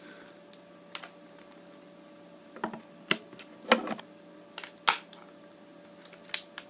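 About half a dozen sharp clicks and knocks at uneven intervals: PVC shot tubes being pushed into the arm cannon's brass quick-disconnect fittings, with the hard plastic-and-metal frame knocked about in the hands.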